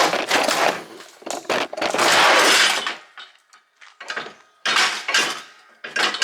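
Yard cart clattering and clanking as it is flipped upright and set down on its new tyres, in several loud rattling bursts with a quieter pause a little after the middle.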